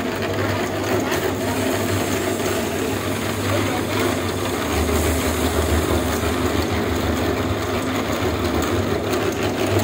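Steady mechanical hum of a running motor or engine, with a deeper low hum growing stronger about halfway through.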